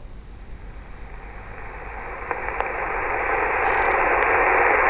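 CB radio receiver static: a steady hiss with no readable voice. It starts faint and swells over the first few seconds, then holds loud, as an answering station's weak, faded signal fails to come through.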